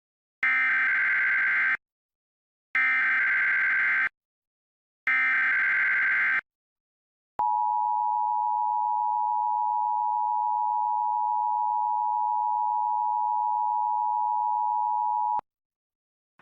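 Emergency Alert System header: three identical bursts of screechy SAME digital data tones, each about a second and a half long with short gaps between. These are followed by the two-tone attention signal, held steady for about eight seconds and then cut off, which opens an EAS Required Monthly Test.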